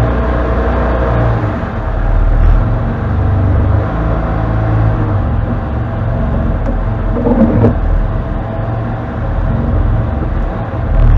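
Can-Am Defender HD10 side-by-side's V-twin engine running at crawling speed over rough trail, heard from inside the cab, its note swelling and easing with the throttle. A short clatter about seven and a half seconds in.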